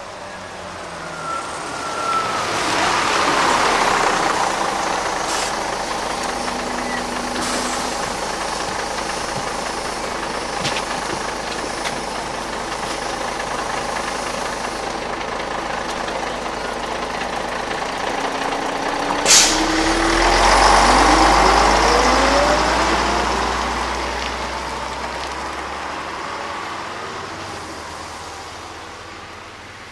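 Recorded road-traffic sound effect played through the theatre's speakers: vehicles rushing past, a first pass about three seconds in and a heavier one with a low rumble and a rising engine tone about twenty seconds in, fading away near the end. A sharp click comes just before the second pass.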